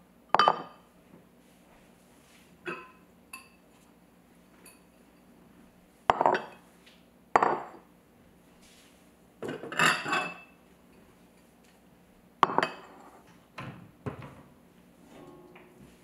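Ceramic bowls being set down and handled on a hard kitchen countertop: about ten separate clinks and knocks spread a second or several apart, each ringing briefly.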